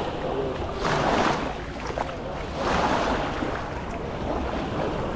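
Small waves washing onto the shore, swelling twice about two seconds apart, with wind rumbling on the microphone.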